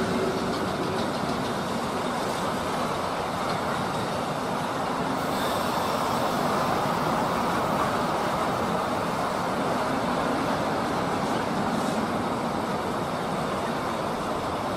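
Freight wagons loaded with containers and tank containers rolling past, a steady rumble of wheels on rails. The pitched hum of the BLS Re 465 electric locomotives dies away right at the start.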